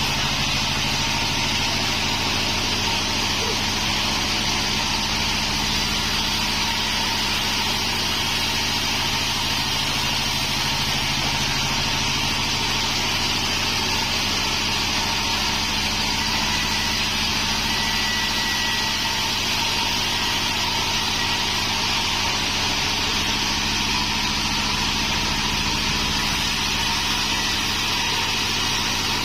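Pandan band sawmill running steadily, its engine and drive making an even, unchanging drone with no rise or fall.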